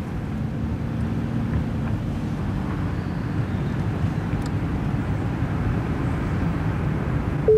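Steady low road and engine noise of a moving car, heard from inside the cabin.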